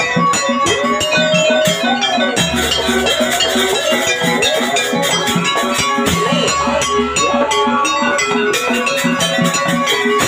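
Live jaranan gamelan music: rapid hand-drum strokes and ringing bronze metallophone and gong tones under a wavering, bending melody line.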